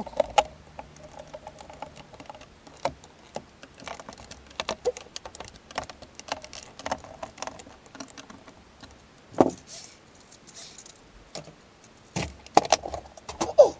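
Irregular small clicks and ticks of a hand screwdriver turning screws into a hoverboard's plastic shell as it is put back together. A louder knock comes about halfway through, and several more near the end.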